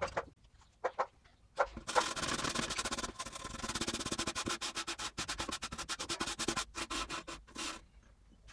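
Rubbing or sanding strokes on the rusty steel tool box: a few separate strokes, then from about two seconds in a fast, even run of quick back-and-forth strokes that stops near the end.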